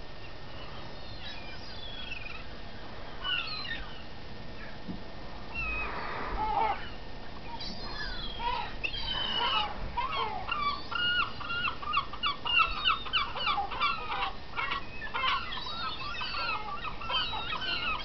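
A flock of gulls calling over one another. From about eight seconds in, the calls build into a fast run of repeated, laughing calls.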